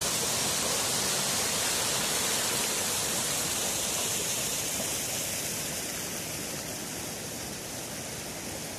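Rushing water of a rocky stream cascading over stones, a steady hiss that grows fainter through the second half.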